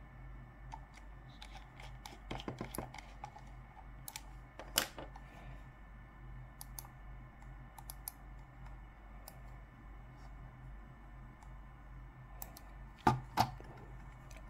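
Small sharp clicks from a Logitech MX Master mouse being handled and clicked: a quick run of clicks about two seconds in, a single louder click near five seconds, and two loud clicks close together near the end, over a steady low hum.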